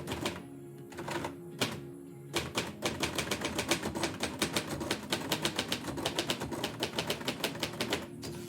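Typewriter typing: a few single keystrokes, then from a couple of seconds in a fast, steady run of key strikes that stops near the end.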